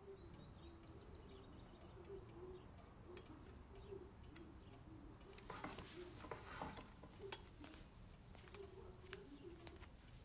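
Faint clinks of cutlery against plates and glasses at a table, with soft pigeon cooing repeating in the background and a brief rustle of movement a little after midway.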